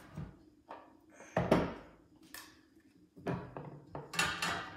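Knocks and clatter of a roof-mounted bike rack's long rail and its fittings being handled and set down on a wooden table, about half a dozen separate knocks, the loudest about a second and a half in.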